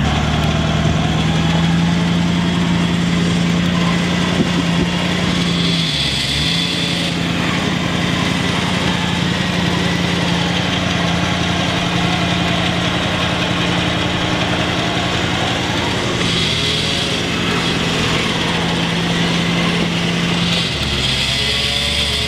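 Electric 4x4 winch motor running steadily under load as it hauls a vehicle in on its synthetic rope. Its pitch dips briefly about six seconds in, and twice more in the second half.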